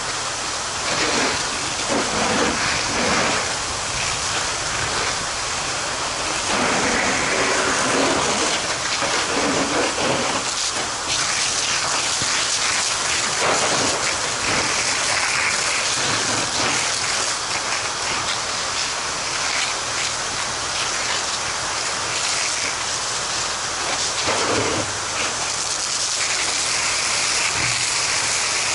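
Fire hose nozzle spraying a steady water jet onto burning debris: a loud, continuous hiss and splatter of water.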